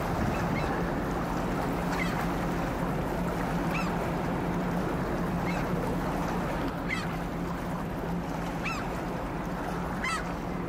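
Steady low hum of a tugboat's engine over water and wind noise, with a bird giving short calls about every one and a half to two seconds.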